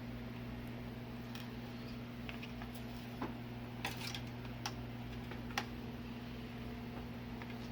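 A handful of light, sharp clicks and taps, irregularly spaced and loudest a little past the middle, as LED backlight strips and parts are handled, over a steady low electrical hum.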